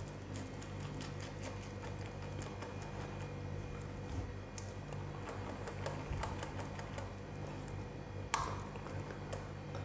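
Wire whisk stirring thick cake batter with chocolate chips in a glass bowl: a quiet, irregular stream of light ticks as the wires tap the bowl, with one sharper click about eight seconds in. A steady low hum runs underneath.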